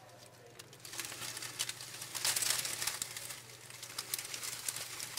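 Dry leaf litter rustling and crackling as a wandering garter snake crawls through it. The crackling builds from about a second in, peaks around the middle and then thins out.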